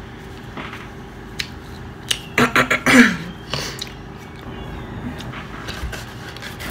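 A short nonverbal sound from a person's voice about two seconds in: several quick pulses ending in a falling tone. Quiet room tone with light handling clicks around it.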